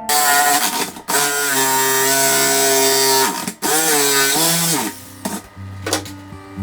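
Handheld electric power tool running in several stretches, its pitched whine holding steady and then dipping and rising as the motor slows and speeds up, with brief stops about a second in and at about three and a half seconds.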